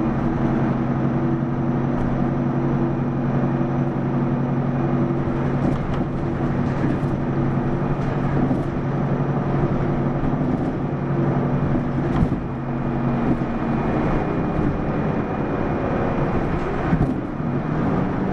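Mitsubishi Fuso PDG-AA273KAN city bus heard from inside, its diesel engine running with a steady hum. A few faint clicks and knocks sound now and then.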